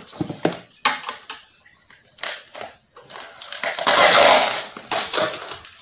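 Shredded paper packing rustling and crackling as hands dig through it around a plastic box, with a few light knocks; a longer, louder rustle comes about four seconds in.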